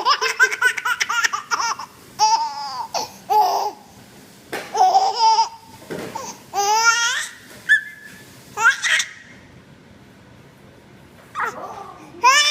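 Baby laughing in repeated high-pitched bursts of giggles, with a pause of about two seconds near the end before it laughs again.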